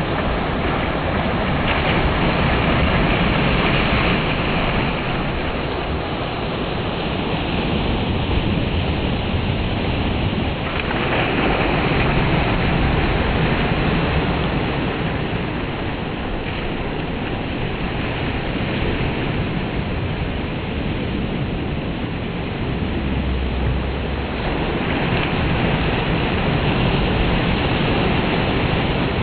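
Gulf of Mexico surf washing onto the beach in a steady rush, swelling three times as waves break.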